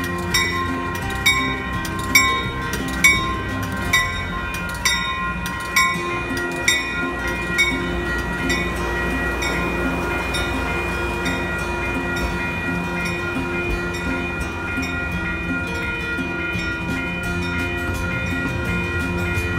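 Amtrak Pacific Surfliner bilevel passenger train rolling past a grade crossing with a steady rumble of cars and wheels, while the crossing bell rings about once a second; the bell strokes fade out about eight seconds in and the train noise carries on.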